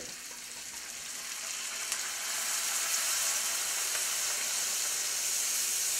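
Room-temperature beer poured into a hot skillet of browned bratwurst and onions, sizzling; the sizzle swells about two seconds in as more beer hits the pan, then holds steady.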